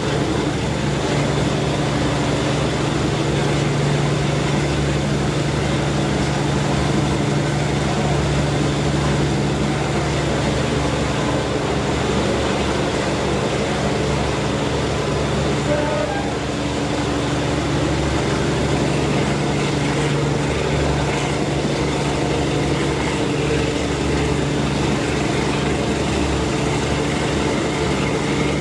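Class 52 'Western' diesel-hydraulic D1015 working steadily under power, its twin Maybach diesel engines giving an even drone, heard from a coach of the train it hauls over the rumble of the wheels on the rails.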